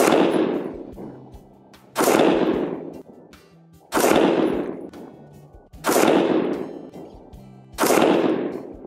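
Stag Arms STAG-15 3 Gun AR-15 in .223, fired unsuppressed: five single shots about two seconds apart, each followed by a long fading echo.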